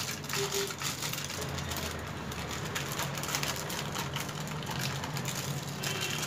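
Wooden rolling pin rolled over butter paper on freshly spread almond praline, then the paper crinkling and rustling as it is peeled back off the brittle, with a steady low hum underneath.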